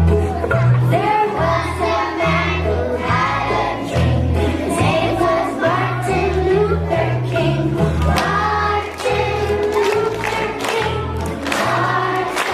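Music with a choir singing over a strong, pulsing bass line.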